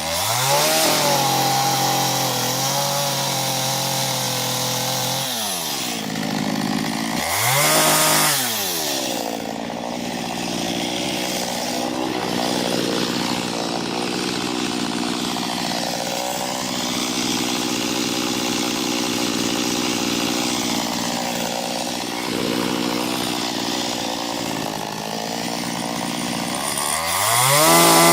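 Small chainsaw with a 15-inch bar cutting into an ash trunk. It revs up sharply near the start, again about eight seconds in, and once more at the end. In between, its pitch sags and recovers repeatedly as the chain loads up in the wood.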